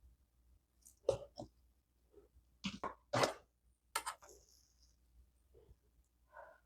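Several short knocks and scrapes, the loudest a cluster about three seconds in; one knock about four seconds in is followed by a brief high ring.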